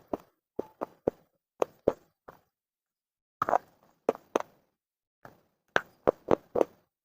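Close-up crunching of baked clay being bitten and chewed: a run of short, sharp crunches in irregular clusters, about fifteen in all, with a pause of about a second partway through.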